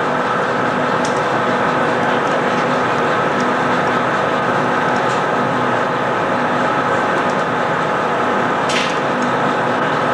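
Steady, loud roar of a glassblowing hot shop's furnace and glory-hole burners and blowers, with a faint hum in it and a brief clink near the end.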